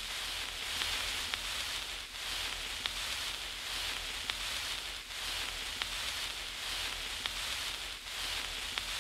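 Steady hiss with faint, scattered clicks and crackles, dipping slightly in level about every one and a half seconds.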